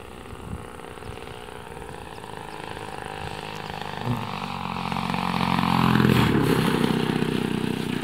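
Radio-controlled model airplane's small fuel-burning engine running at low throttle as it comes in to land, growing louder from about four seconds in and loudest about six seconds in as it passes close.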